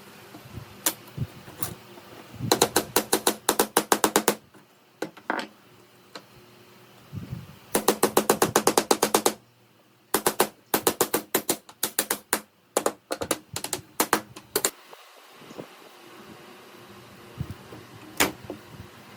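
Runs of rapid, sharp clicks or taps, about eight a second, in bursts lasting one to two seconds with short pauses between them.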